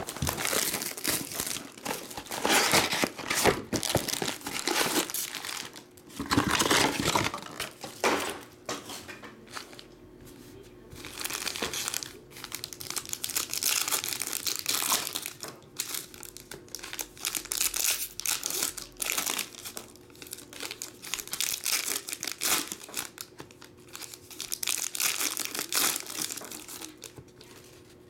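Foil trading card packs crinkling and tearing as a hobby box of packs is opened and the packs are handled and ripped open, in irregular bursts of rustling.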